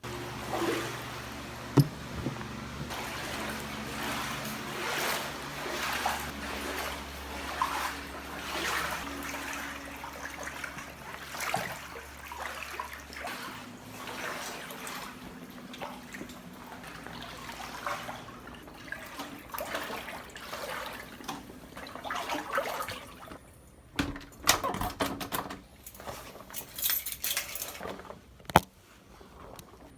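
Floodwater sloshing and trickling steadily, with a few sharp knocks near the end.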